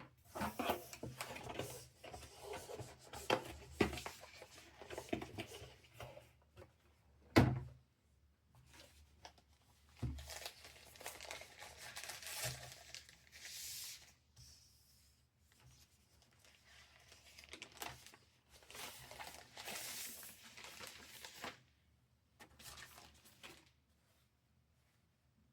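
Packaging being handled during an unboxing: paper or plastic wrapping rustling, crinkling and tearing in several bursts, with one sharp knock about seven seconds in.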